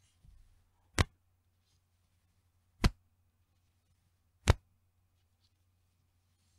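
Bra's elastic band pulled out and let go, snapping back three times a little under two seconds apart, each a sharp single slap.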